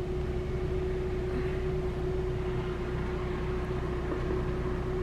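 Steady hum inside a car with the engine running: an even hiss with one constant low tone and a low rumble beneath it.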